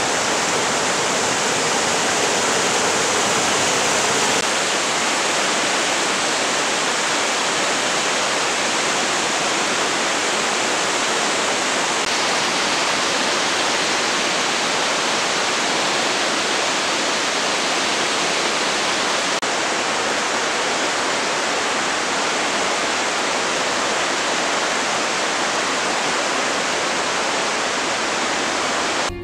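Mountain river rushing through a narrow gorge: a loud, steady noise of white water, shifting slightly about four seconds in.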